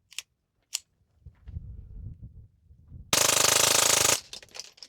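Suppressed .22 LR gunshots through a Lone Wolf Arms Eliminator22 suppressor: two single shots about half a second apart right at the start, then a very fast string of shots run together for about a second just past the three-second mark. A few more single shots follow near the end.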